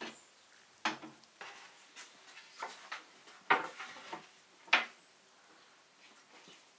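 A handful of sharp wooden knocks and clatters as a wooden rolling pin and round dough board are handled and set down on a table. The two loudest knocks come about three and a half and nearly five seconds in.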